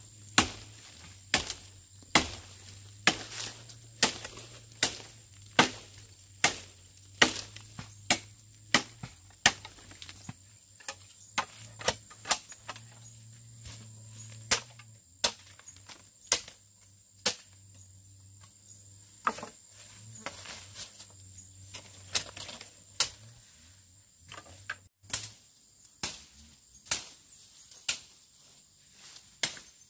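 Chopping: a blade striking wood over and over, a little more than once a second at first, then less evenly with short pauses.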